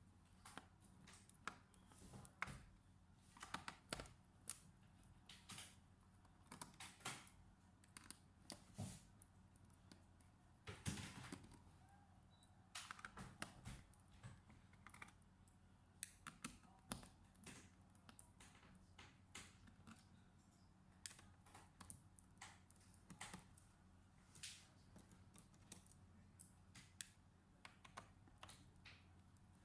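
Faint, irregular light clicks and taps of hands working on a laptop's parts and tools during a RAM and SSD upgrade, with a slightly longer rustling burst about eleven seconds in.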